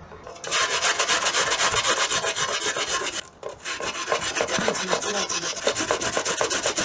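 An onion being grated on the fine side of a stainless-steel box grater: quick, even scraping strokes, several a second, starting about half a second in, with a brief pause about halfway.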